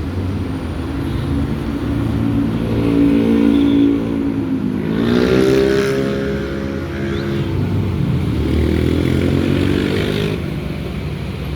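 Bus sounding its multi-tone basuri horn over its running engine: several tones held together in long phrases, sliding up in pitch around the middle, with the engine's low rumble underneath.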